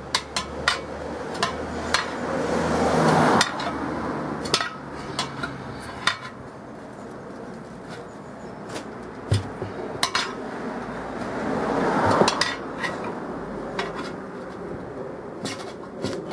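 Steel tyre lever clinking and knocking against a steel Land Rover wheel rim as the tyre bead is levered over it. Twice, about three seconds in and again about twelve seconds in, a rising rubbing noise swells and then cuts off suddenly.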